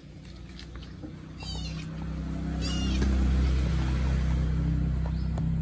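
Kitten mewing: two short, high-pitched mews, about a second and a half in and again near three seconds. Under them a low steady rumble swells from about a second and a half in and is the loudest sound through the middle.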